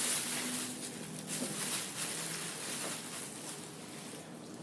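Faint eating noises at the table: chewing and small scattered clicks of food and fast-food packaging being handled, over a faint steady low hum.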